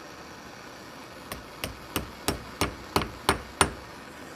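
Steady hiss of a gas torch flame, then about a second in, eight light metal taps, evenly spaced at about three a second and growing louder: a small hammer tapping a heated steel spring coupon into shape.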